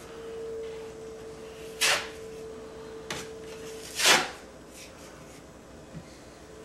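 Short scraping strokes of a drywall tool against the patch: a sharp one about two seconds in, a faint one, then a longer, louder one a second later. A faint steady hum runs underneath and stops near the two-thirds mark.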